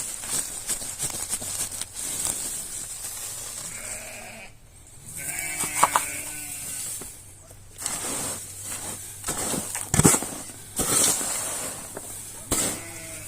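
A sheep bleats once, a drawn-out wavering call near the middle, amid rustling and scattered knocks, the loudest a sharp knock about ten seconds in.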